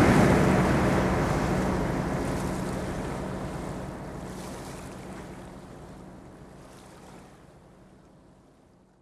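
Rushing, surf-like noise from a logo-intro sound effect, fading steadily over about nine seconds until it dies away near the end, with a faint steady low hum under it.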